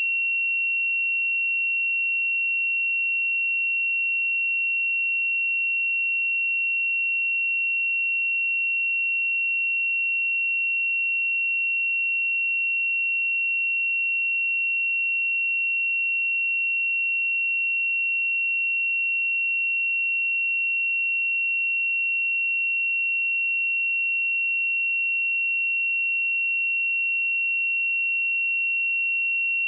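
A pure 2731 Hz sine-wave test tone, one steady high-pitched tone held at a constant level, for checking speakers or headphones.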